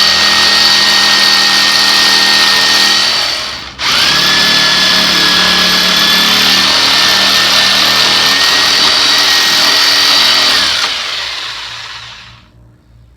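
Handheld circular saw (Skil saw) motor running at full speed with a steady whine. The trigger is let go about three and a half seconds in and the saw spins straight back up, then near the end it is released and winds down to a stop.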